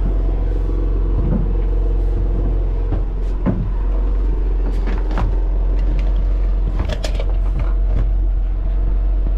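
A steady low machine hum with several short knocks and clicks over it.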